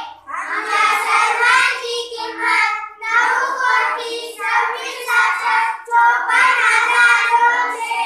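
A group of children singing together in unison, in short phrases with brief breaks between them.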